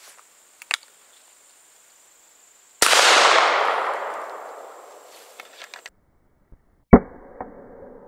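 A single .410 shotgun shot from a Rossi Circuit Judge's 18.5-inch unchoked barrel, firing #6 birdshot: a click, then a loud sharp report that echoes and fades over about three seconds. About four seconds later comes a second, even louder sharp bang with a shorter ringing tail.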